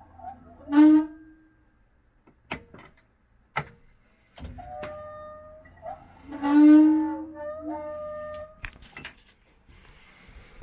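Electric fuel pump humming steadily for about four seconds with the ignition on and the engine not running, priming the system as fuel pressure builds. Sharp clicks come before and after the hum, and two loud pitched tones sound, one about a second in and one midway through the hum.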